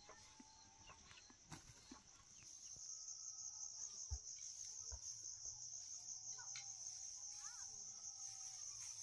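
Faint, steady, high-pitched insect chirring that grows louder a few seconds in, with a few light knocks.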